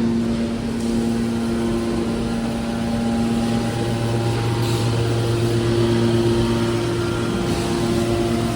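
Scrap steel baler's hydraulic power unit running: a steady mechanical hum with several held tones that shift slightly about four seconds in.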